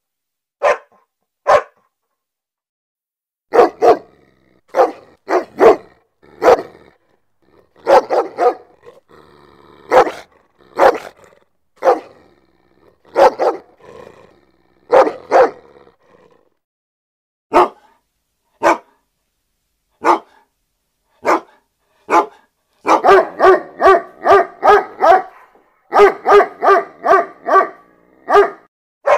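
A dog barking repeatedly: single barks with short pauses between them, then near the end two quick runs of barks at about four a second.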